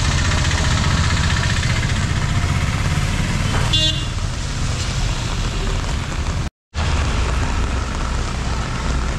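Road traffic on a rain-wet street: engines running with a steady low hum and the hiss of tyres on wet tarmac, with a short horn toot about four seconds in. The sound cuts out for a moment about two-thirds through.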